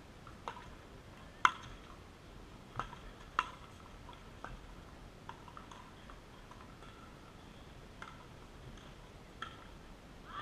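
Scattered sharp, hollow pops of pickleball paddles striking plastic pickleballs, about half a dozen in all, the loudest about a second and a half in.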